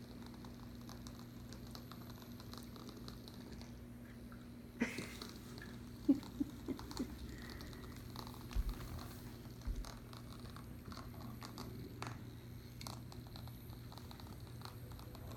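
A cat playing with a battery-operated toy bug: a steady low hum runs under scattered light taps and clicks. There is a small cluster of knocks and short blips about six to seven seconds in, and a couple of soft thumps a little later.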